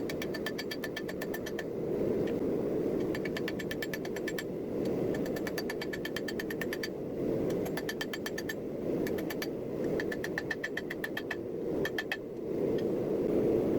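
Rapid runs of hammer blows on hot steel over an anvil, each strike ringing, in bursts broken by short pauses. A steady forge roar runs underneath.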